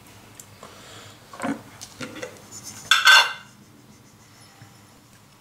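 Glass spice jar and small porcelain bowls clinking and knocking on a granite worktop: a couple of short knocks, then a louder clatter about three seconds in.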